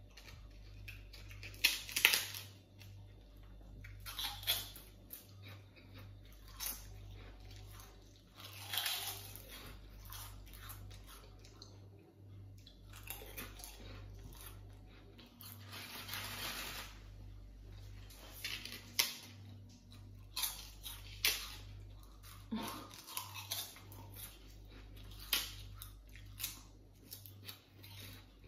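Close-up eating sounds: prawn crackers bitten and chewed, with irregular crisp crunches and mouth noises.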